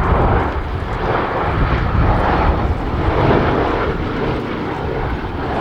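Boeing B-17 Flying Fortress flying past with its four radial engines running, a loud steady drone that swells and eases slightly.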